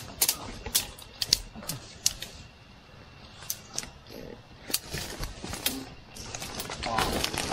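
Irregular sharp cracks and crackles of twigs and dry leaves as hikers push through dense forest undergrowth, with a quieter stretch midway.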